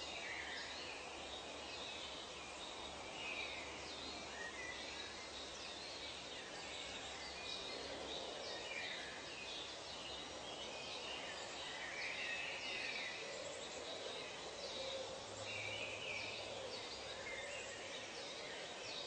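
Nature ambience: many short, high-pitched bird calls and chirps over a steady background hiss.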